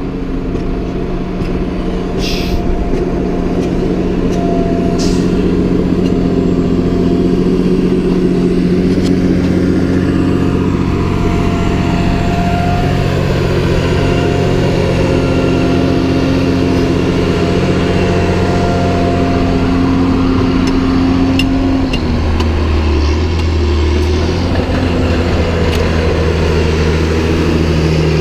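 Farm tractor diesel engines running under load while pushing and packing chopped maize silage, a loud steady drone whose pitch shifts with the work. The pitch drops noticeably about three-quarters of the way through.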